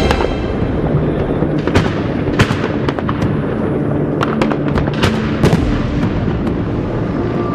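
New Year's fireworks going off in a dense volley: a continuous rumble of bursts with many sharp bangs and cracks scattered through it.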